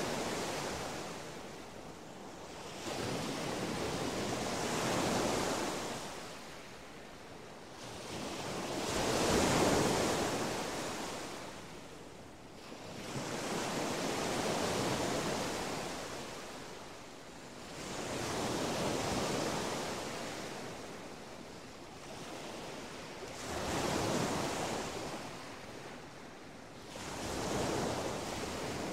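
Ocean surf: waves breaking and washing up a sandy beach, each one swelling and fading, about every five seconds.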